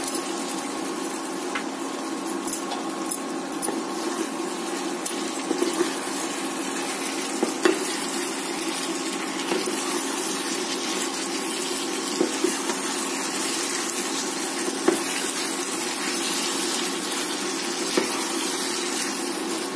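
Chicken curry sizzling in a nonstick kadai while it is stirred with a wooden spatula, under a steady hum. The spatula knocks against the pan now and then.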